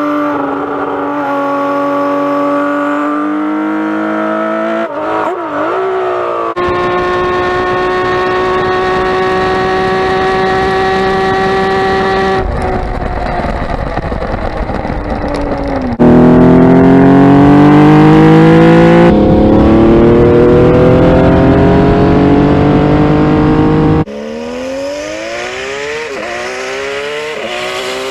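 Kawasaki Z1300's inline six-cylinder engine and exhaust, heard in several short spliced clips. It holds steady revs, then accelerates with the pitch climbing through the gears, a drop in pitch at each shift. The loudest stretch is about two-thirds of the way through.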